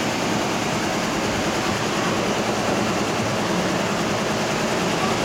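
1932 Pierce-Arrow's flathead engine idling steadily, a smooth, even hum.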